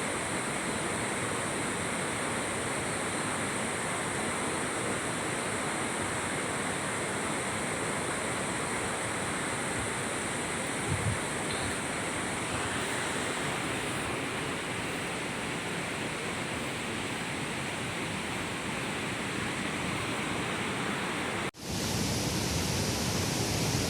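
Steady rushing of a waterfall, an even wash of water noise with a brief low thump about halfway. Near the end it drops out for an instant and comes back louder.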